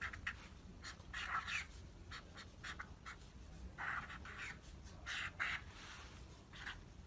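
A pen writing by hand on paper: short, irregular scratching strokes with small pauses between them.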